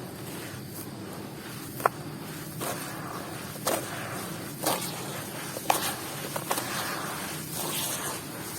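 Crunchy moulded balls and squares being crushed and crumbled by hand, with sharp cracks about two seconds in and then roughly once a second, over a steady crackling crumble.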